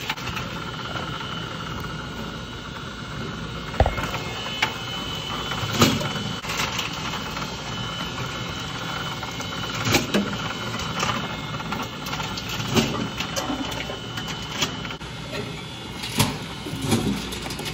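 Bottle-return reverse vending machine running, its conveyor motor whirring steadily while plastic bottles are fed in. Sharp knocks and plastic clatter every few seconds as each bottle is taken in.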